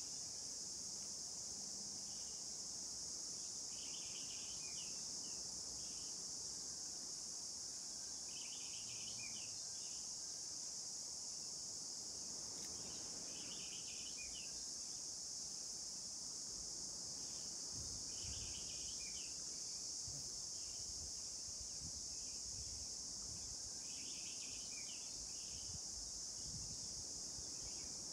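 A steady high-pitched insect drone, like crickets, with a short chirping call repeating every few seconds. Faint low rumbles come in during the second half.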